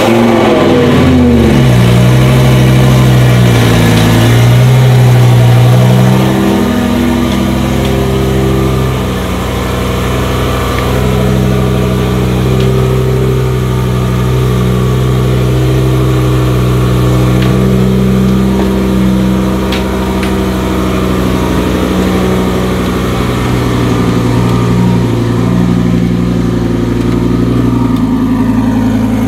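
Twin-turbo Lamborghini Huracan V10 idling loudly. Its revs drop in the first second or so, then hold a fairly steady idle with small rises and dips while the car creeps slowly out of its transport trailer.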